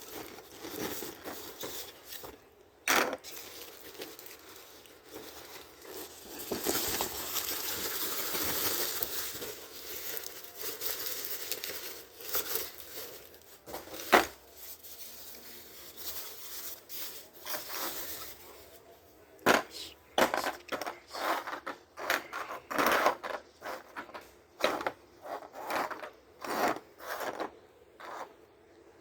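Parcel packaging being torn open and rustled, with scattered sharp clicks and knocks of small hard items being handled, the clicks coming thick and fast in the last third.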